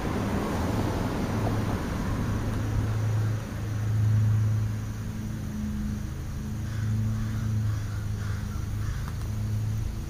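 Car on the street driving past, its road noise fading over the first couple of seconds, under a steady low engine hum that swells briefly about four seconds in.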